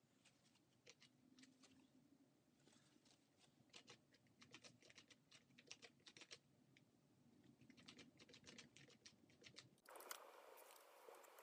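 Faint, irregular light clicks and taps coming in quick clusters, then a faint steady hiss near the end.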